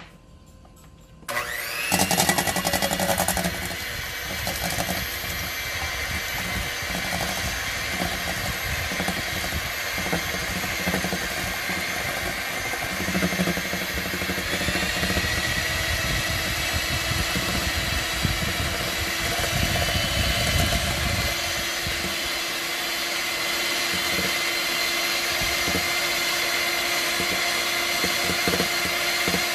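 Electric hand mixer starts about a second in and runs steadily, its twin beaters whipping egg whites and sugar into meringue in a stainless steel bowl. The motor's pitch steps up slightly about halfway through.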